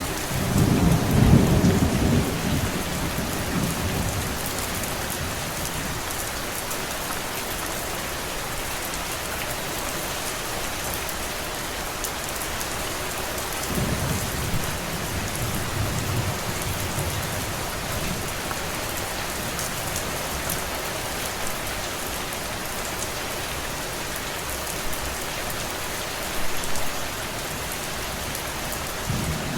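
Steady rain falling, with low rolls of thunder: the loudest in the first few seconds, a softer one about halfway through, and another beginning near the end.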